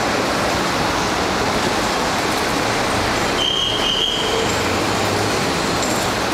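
Steady city street noise of passing traffic, a dense even rumble and hiss, with a short high-pitched squeal a little past halfway.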